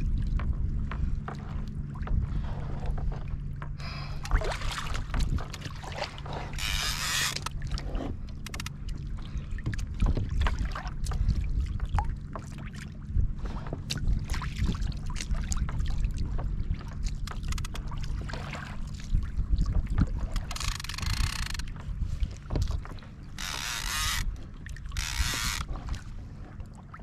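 Wind and water noise on a fishing kayak: a steady low hum under scattered knocks, with several short bursts of hiss.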